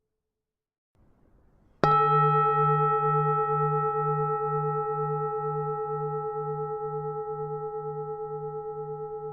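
Buddhist temple bell struck once, a little under two seconds in, then ringing on with a slowly fading chord of tones over a deep hum that pulses about two to three times a second.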